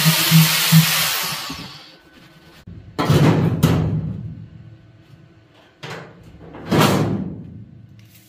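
Angle grinder grinding welds on the steel floor pan of a car body shell, then released and spinning down over the first two seconds. After that come a few metallic knocks as a steel bracket is set against the bare body, two of them loud and ringing out for about a second each, some four seconds apart.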